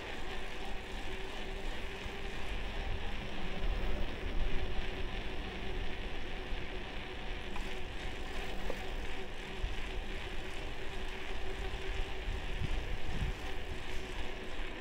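Wind and road noise from riding a bicycle, picked up by an action camera's built-in microphone: a steady low rumble of wind with a hiss above it, rising and falling slightly in strength.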